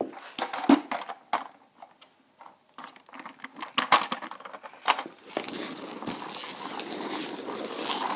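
Clicks and knocks of a plastic toy vehicle being handled and moved over a laminate floor, then a steady rustling noise from about five seconds in.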